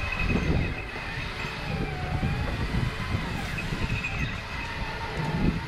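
Steady low rumble of the fishing boat's running machinery, with faint voices in the background.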